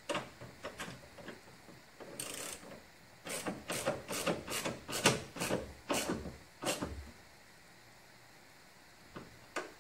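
Allen wrench tightening a bolt on a metal catch can mounting bracket: a series of sharp metal clicks, about two a second, as the key is turned and reset on the bolt. There is a short scrape a little after two seconds in. The clicks stop about seven seconds in, and two more come near the end.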